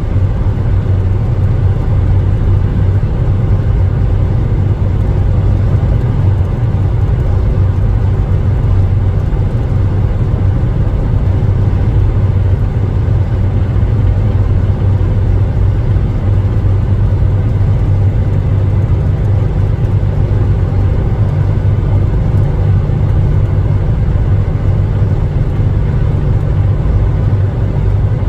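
Steady road noise of a car cruising at highway speed, heard from inside the cabin: a constant low rumble of engine and tyres.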